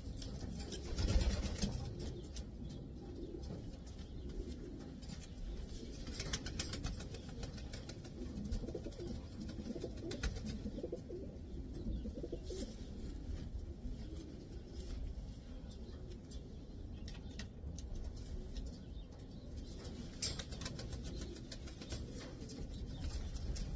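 Racing pigeons cooing, a low wavering murmur throughout, with scattered short clicks and rustles. The loudest click comes about a second in.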